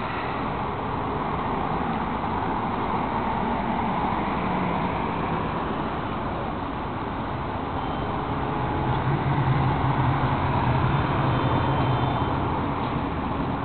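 Road traffic on a city street, cars passing steadily with a continuous noise of engines and tyres. A heavier vehicle's low engine hum grows louder from about eight seconds in.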